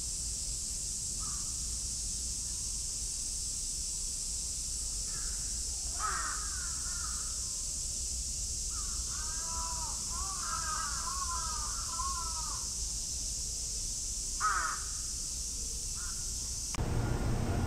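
A bird cawing: a single call about six seconds in, a run of repeated caws lasting about four seconds, and one more call near the end, over a steady high hiss.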